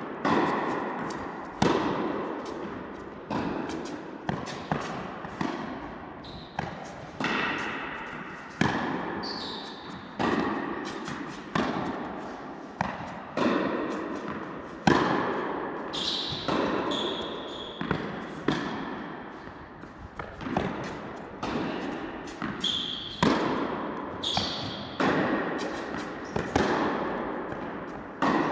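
Tennis ball struck back and forth with rackets and bouncing on an indoor court in a long baseline rally, each hit and bounce a sharp knock that echoes around the hall, coming roughly every half-second to second and a half.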